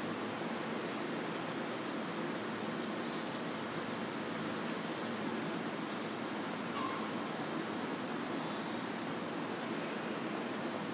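Outdoor ambience: a steady background hiss with a short, very high chirp repeating about once a second.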